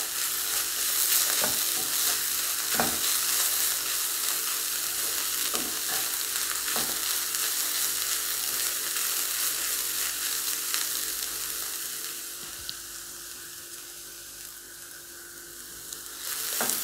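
Shredded cabbage and carrot sizzling in coconut oil in a nonstick kadai on a high flame, stirred with a wooden spatula that scrapes and knocks against the pan. The sizzle turns quieter about twelve seconds in.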